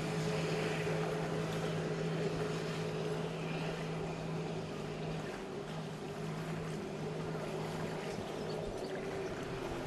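Engine of a jet ski or boat running steadily on the water with a constant hum. Near the end its pitch drops as it slows.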